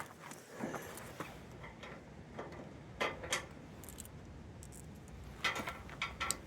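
Faint, scattered clicks and light ticks of small nuts and bolts being handled and fitted while a plow marker is bolted onto its mount.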